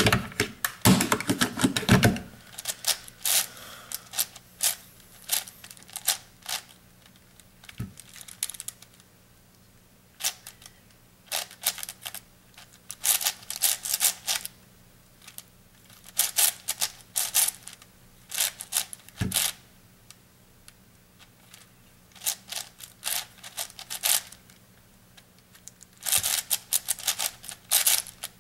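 An 8x8 puzzle cube being turned by hand: bursts of plastic clicking and clacking as its layers are turned, with short pauses between bursts. A couple of soft low knocks come through partway along.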